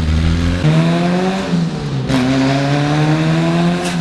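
Car engine running hard under load, its pitch climbing slowly and jumping abruptly a few times, with a sharp crack about two seconds in and another near the end.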